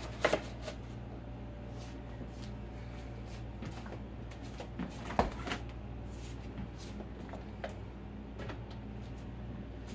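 Kitchen handling sounds: scattered light clicks, knocks and rustles, the sharpest just at the start and about five seconds in, over a steady low hum.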